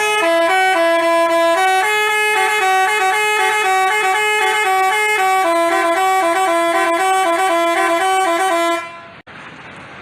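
Basuri telolet multi-tone bus horn playing a quick tune of short notes that step up and down in pitch. It cuts off about nine seconds in, leaving a faint hiss.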